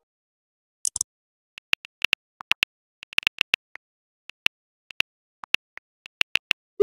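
iPhone on-screen keyboard clicks, a quick irregular run of sharp taps as a text message is typed, ending in a short rising swoosh as the message is sent.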